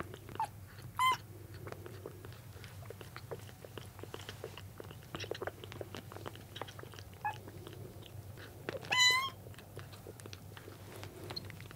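Young kittens mewing in thin, high cries: a few short ones near the start and a louder, longer one about nine seconds in. Under them runs a steady patter of small wet clicks and smacks from a kitten suckling milk from a nursing bottle.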